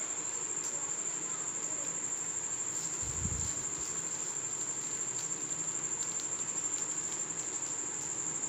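Insects trilling as one steady, high-pitched tone, with a soft low bump about three seconds in and a few faint taps.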